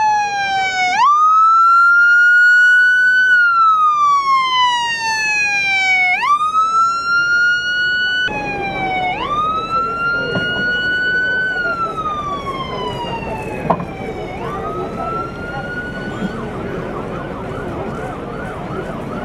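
Ambulance siren wailing: each cycle leaps up in pitch, holds briefly, then slides slowly down over about three seconds before leaping again. It grows fainter as the ambulance drives off, and near the end the tone wavers quickly.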